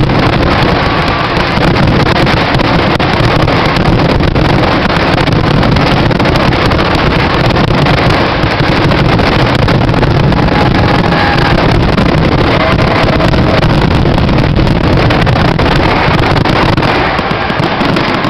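Rapid barrage of aerial fireworks shells bursting, the bangs running together into one steady, loud rumble.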